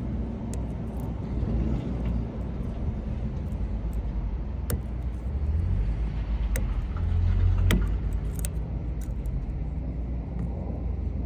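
Steady low rumble of a running vehicle engine, swelling briefly about three-quarters of the way through, with a handful of sharp clicks and taps scattered over it.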